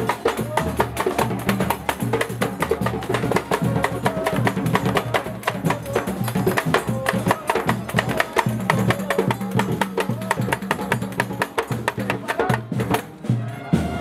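Bumba-meu-boi street percussion: hand drums and sticks played together in a fast, driving rhythm. It thins out briefly near the end.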